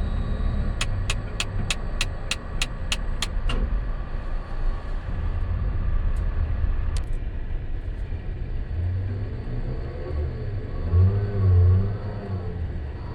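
Low rumble of running machinery. A quick run of about ten sharp, evenly spaced clicks comes near the start, and the rumble swells louder with a wavering pitch near the end.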